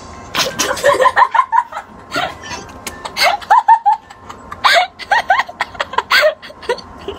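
A teenage boy bursting out laughing with a mouthful of water, spluttering it out, then a run of short, high laughs and giggles.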